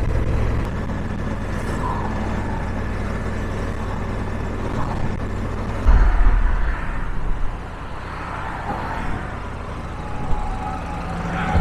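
Honda Africa Twin motorcycle on the move in motorway traffic: a steady engine drone under rushing noise, with a louder low rumble for a second or so about six seconds in.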